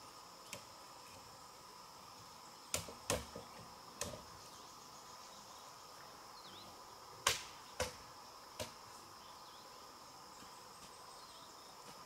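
Bamboo being chopped with a blade: sharp knocks in two clusters, the first about three seconds in and a louder one about seven seconds in. A steady insect drone runs underneath.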